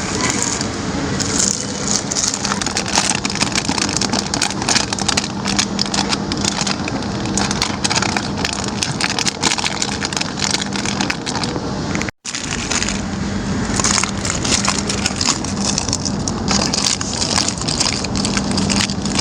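Close-up crinkling and rustling of shop goods and their packaging being handled, a dense run of crackles and small scrapes over a steady hum, broken by a brief cut to silence about twelve seconds in.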